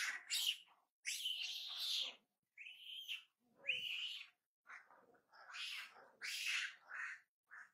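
Macaques calling: a string of short high-pitched squeaks and chirps, about one a second, some rising and falling in pitch.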